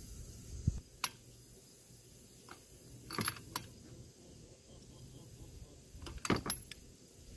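Hand tools clinking and tapping on metal under a Yamaha Warrior 350 ATV's engine: a dull thump just after the start, then scattered light metallic clicks, with small clusters about three seconds in and near the end.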